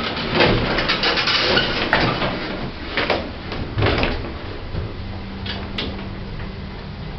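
Service lift's sliding doors rumbling shut, then a steady low hum from about five seconds in as the car starts to travel.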